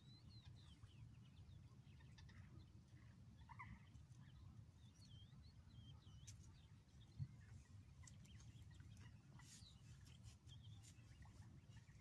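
Faint, scattered high chirps and short calls of birds over a low, steady rumble of wind or handling noise, with one soft low bump a little past the middle.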